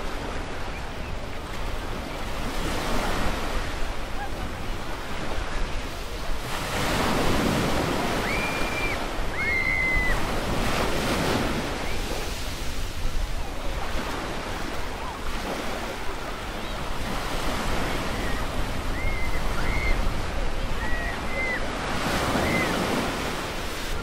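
Small waves breaking and washing up a sandy beach, the surf swelling and easing every few seconds, with wind. A few short high-pitched calls come through about a third of the way in and again near the end.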